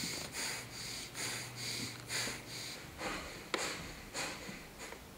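A person breathing hard in quick sniffing breaths, about two a second, growing fainter near the end, with one sharp click about three and a half seconds in.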